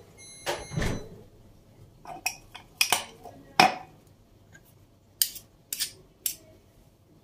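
A metal spoon clinking and scraping against a glass jar and a bowl as thick pepper paste is scooped out and knocked off into yogurt: a string of short, irregularly spaced clinks and taps.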